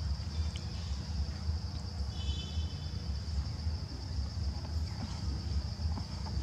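Outdoor ambience: insects droning steadily at one high pitch over a low rumble, with a brief high chirp about two seconds in.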